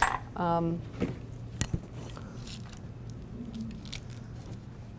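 A brief vocal sound about half a second in, then a few light clicks and taps as a plastic clamshell container is picked up and handled, over quiet room tone.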